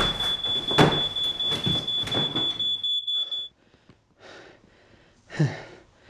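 A smoke alarm sounds a steady high tone while a pillow thumps repeatedly against a cloth backdrop, beating out a small fire in the paper prop; the alarm cuts off about three and a half seconds in. A man's heavy sighing breaths follow near the end.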